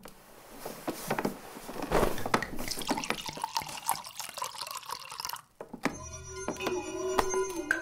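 Liquid splashing and trickling as it is poured from a bottle into a small glass. About six seconds in, music starts with a held tone and light clinks.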